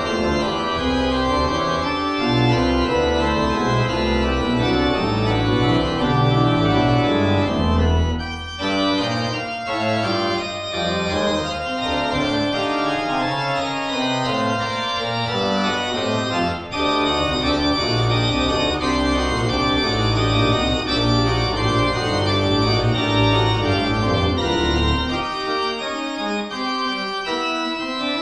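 Hey pipe organ playing dense, sustained chords on the manuals over a deep pedal bass. About three seconds before the end the pedal bass drops out and only the higher manual voices go on.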